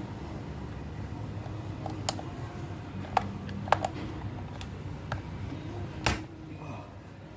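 A few scattered light clicks and taps of small hard objects being handled, the sharpest about six seconds in, over a low steady hum.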